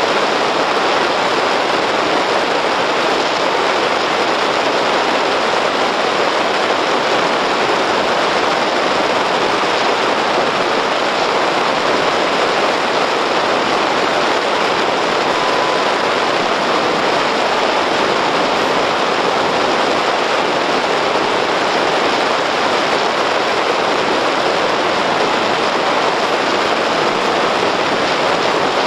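Steady, even rushing cabin noise of a car driving along a snow-covered road, picked up by a dashcam's microphone.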